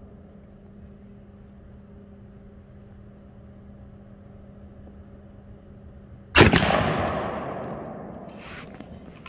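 A single rifle shot from an AR-15-style rifle about six seconds in, its report echoing and dying away over about two seconds.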